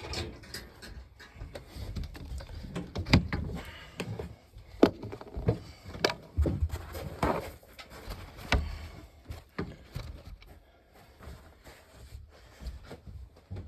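Irregular knocks, taps and short rustles of objects being handled in a small room, with a few sharper clunks in the first two-thirds before it gets quieter.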